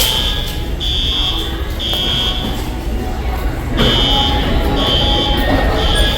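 Building fire alarm horns sounding a loud, high buzzing tone in the three-blast evacuation pattern: three short blasts, a pause, then three more. Background voices murmur underneath.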